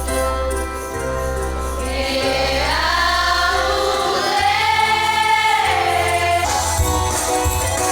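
Choir music: a choir holds long chords, and one voice slides up and back down in the middle. A tambourine comes in near the end.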